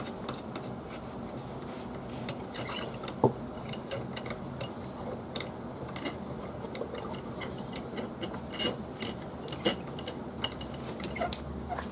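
Scattered light metallic clicks and scrapes as the brake cable adjuster on a Club Car Precedent golf cart is turned by hand to tighten a cable that has worked loose. A low steady hum lies underneath.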